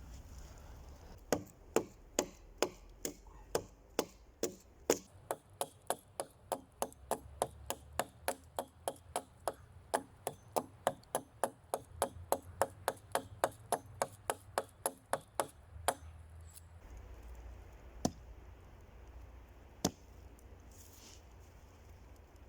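A quick, even series of sharp knocks, about three a second, that runs for some fifteen seconds and stops, followed by two single knocks a couple of seconds apart.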